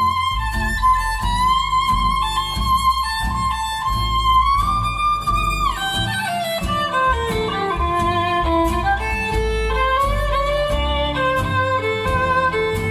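Instrumental music played back on an Audison Thesis car audio system: a violin melody with a long falling slide about six seconds in, over plucked strings and a steady bass line.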